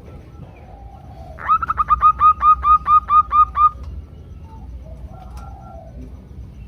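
Female zebra dove (perkutut) calling to draw a male: a quick run of about a dozen short, clipped notes, about five a second, lasting about two seconds. Fainter dove calls come before and after it.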